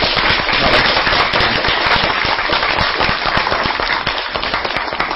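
Audience applauding: many hands clapping in a dense, loud patter that eases slightly near the end.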